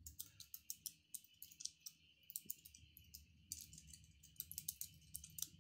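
Faint computer keyboard typing: quick, irregular key clicks.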